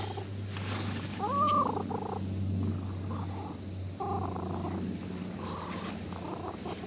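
A ginger-and-white cat purring steadily in a low, even rumble while being stroked, a sign that it is content with the petting. A short call that rises and then falls in pitch comes through about a second and a half in.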